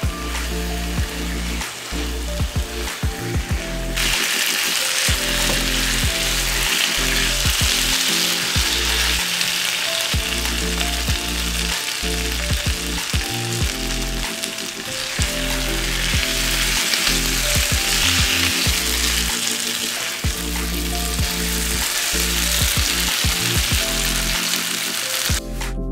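Chicken pieces sizzling as they dry-roast in oil and masala in a nonstick frying pan, turned now and then with a spatula. The sizzle grows louder about four seconds in.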